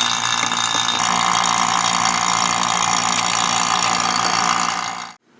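Air pump on an epoxy-degassing chamber running steadily, a motor hum under a loud hiss, with the sound growing slightly fuller about a second in. It cuts off suddenly about five seconds in.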